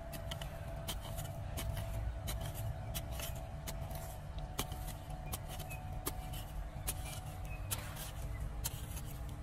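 Metal digging tool chopping and scraping into dry, hard soil as a planting hole is dug, a sharp strike or scrape about twice a second at an uneven pace.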